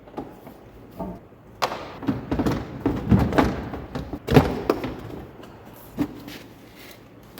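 A series of knocks, taps and thuds as hard objects are handled and set down on a table. The knocks are busiest in the middle, with the loudest thud a little after four seconds in.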